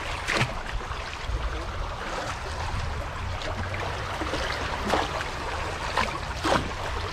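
Running stream water with a steady rushing sound, and a few short sharp sounds: one just after the start and three between about five and six and a half seconds in.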